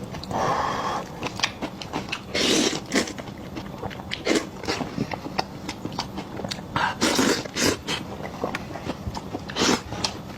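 Mouth sounds of someone eating close to the microphone: wet chewing and lip smacks as many quick clicks, with several longer noisy bursts in between.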